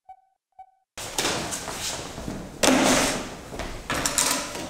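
Two short electronic beeps half a second apart over silence, then office room sound of people moving on a hard tiled floor: scuffing footsteps with a heavy thump a little under three seconds in and another near the end.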